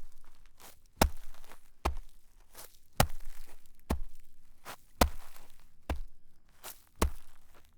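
Regular sharp thumps, about one a second, each trailing off in a short rustling crunch.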